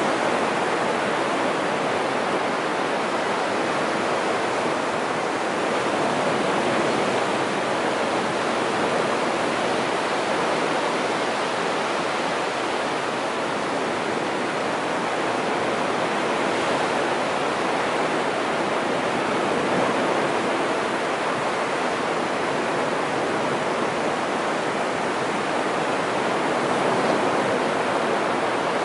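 Surf breaking and washing up a flat sandy beach: a steady rushing of waves that swells and eases gently.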